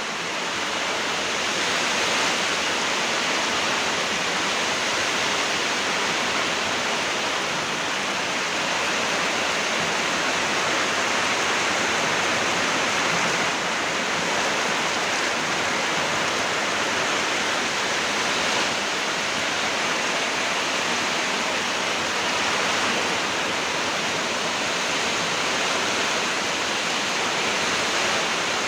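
Steady, unbroken rush of water during a storm, an even hiss with no let-up.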